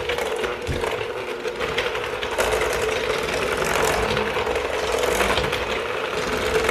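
Electric hand mixer running steadily, its beaters churning thick cookie dough of creamed butter, sugar and eggs. A steady motor whine with a continuous rattle of the beaters against a stainless steel bowl.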